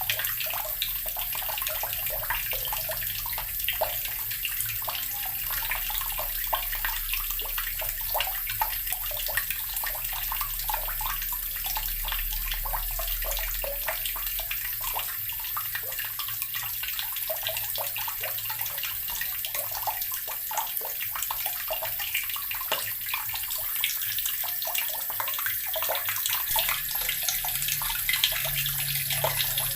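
Water from a tap pouring steadily into an earthen (clay) barrel, gurgling and splashing with many small droplet ticks.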